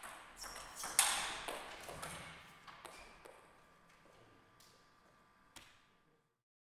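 Table tennis ball clicking off the bats and table in a quick rally, the loudest crack about a second in, followed by a few scattered taps. The sound cuts off near the end.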